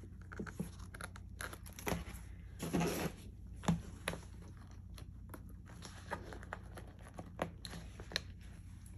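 Faint handling sounds of pens being slid into the slots of a leather zippered pen case: scattered light clicks and taps, with a short rustle of leather about three seconds in.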